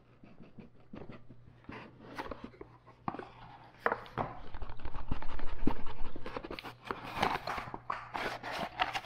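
Rigid cardboard phone box being opened by hand: the lid slides off its base with rubbing and scraping, and the cardboard gives light taps and clicks as it is handled, loudest about halfway through. A faint steady low hum runs underneath.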